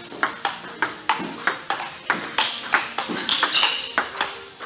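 Table tennis forehand warm-up rally: a steady run of sharp clicks, about three to four a second, as the ball alternately strikes the paddles and bounces on the table.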